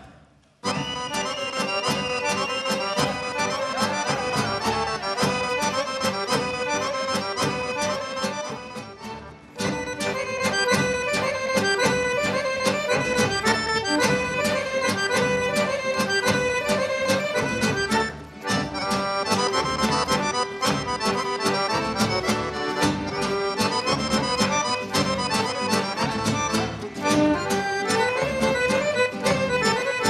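Accordion-led Serbian folk dance music from the Binačka Morava region, played by a folk orchestra at a steady, lively beat. It starts after a brief pause and dips for a moment about nine and eighteen seconds in.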